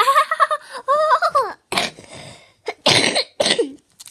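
A young girl making wordless vocal noises: two drawn-out, wavering high 'aah' sounds, then two rough coughs and a short falling cry.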